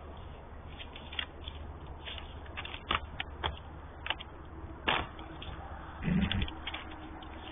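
Scattered sharp clicks and knocks from white-tailed bucks sparring and stepping through dry leaves, with a short low thud about six seconds in.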